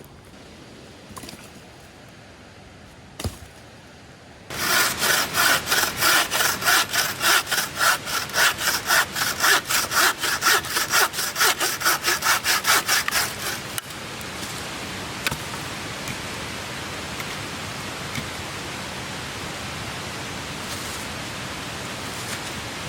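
A bucksaw cutting through wood in quick, rhythmic back-and-forth strokes for about nine seconds, stopping about two-thirds of the way in. A steady rushing noise follows.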